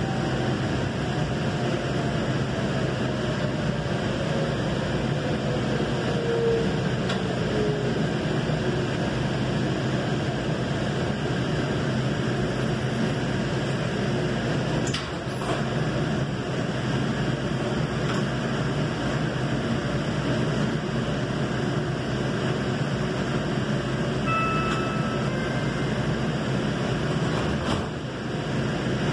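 Steady rumble and hiss inside a moving light rail car, with a faint whine falling in pitch over the first several seconds and a brief beep near the end.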